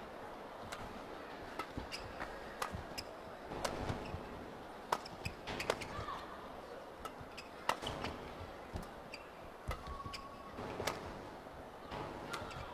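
Badminton rackets striking a shuttlecock in a fast singles rally, an irregular run of sharp cracks, with a few short shoe squeaks on the court mat over a faint arena murmur.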